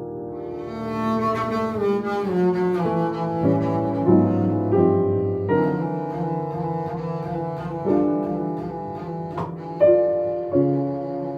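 Piano and double bass playing together, held bass notes under piano chords and melody.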